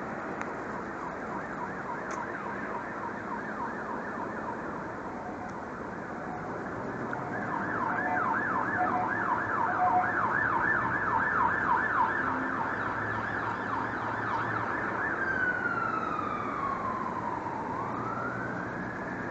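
Emergency vehicle siren in yelp mode, rapid repeated up-and-down whoops, growing louder towards the middle. Later it switches to a slow wail: one long falling glide, then a rise near the end. Low traffic hum underneath.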